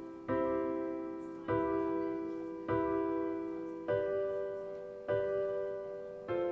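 Background music of slow repeated chords, a new chord struck about every second and a quarter, each fading before the next.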